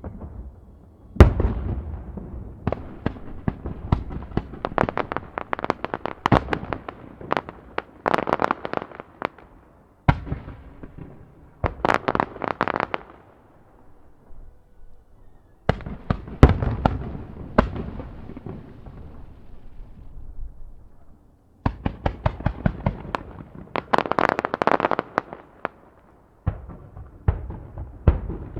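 Aerial fireworks bursting in rapid volleys of sharp bangs and crackles, the bursts coming in dense clusters separated by brief lulls of a second or two.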